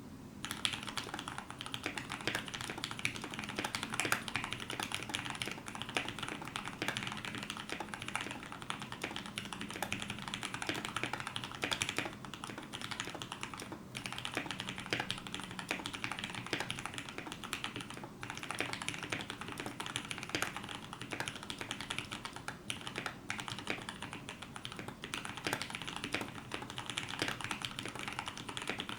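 Fast continuous typing on a KBD75v2 mechanical keyboard with lubed Gateron Yellow linear switches (milky tops, black bottoms) in an aluminium plate, a steady stream of keystroke clacks with occasional brief pauses.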